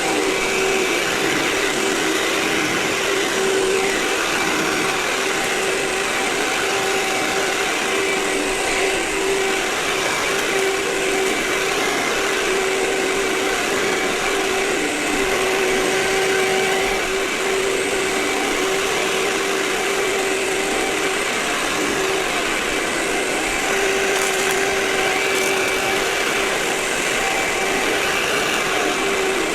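Vacuum cleaner running steadily, a constant motor whine over a rush of air, sped up to four times normal speed.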